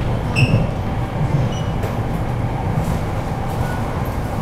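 Taipei Metro C381 train running, heard from inside the car: steady low rumble of wheels and motors, with one short high tone about half a second in.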